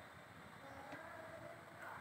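Near silence: faint room tone with a soft click about a second in.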